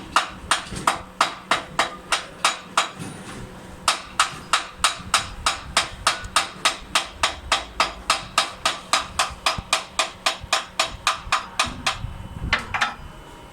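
A hand hammer striking the metal of a concrete mixer truck's pump joint in a rapid, even run of blows, about four a second. The blows stop about twelve seconds in, followed by a couple of looser knocks.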